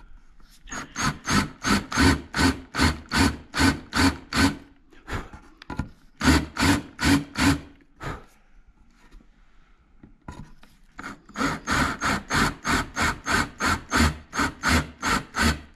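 Cordless drill with a countersink bit cutting into drilled holes in a carbon-fiber aero panel: a rasping cut that pulses about three times a second. It comes in three runs, with short pauses between.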